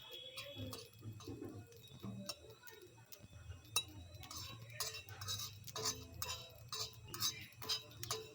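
A metal spoon clinking and scraping against a pan as whole spices, nutmeg among them, are stirred while dry-roasting on a low flame. The clinks come irregularly and grow busier in the second half, over a low steady hum.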